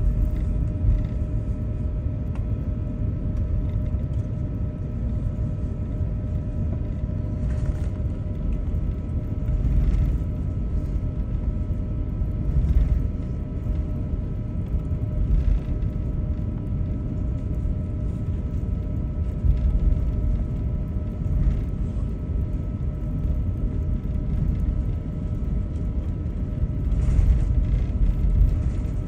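Airliner cabin noise while taxiing after landing: a steady low rumble of the engines at idle with a few faint steady tones, broken by a few brief knocks.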